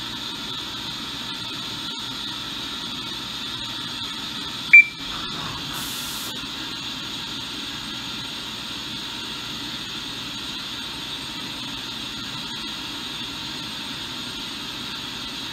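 CNC vertical mill running steadily inside its enclosure, a constant noise with a high tone in it. About five seconds in, one short, loud high beep.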